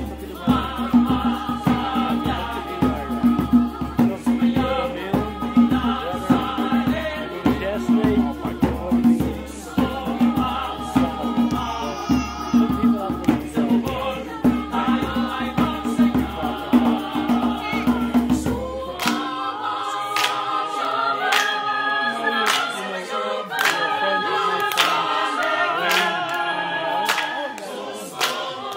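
Mixed choir singing a lively song in parts, with a hand drum beating a steady low rhythm underneath. About nineteen seconds in the drum drops out and the choir carries on a cappella, with sharp rhythmic hand claps.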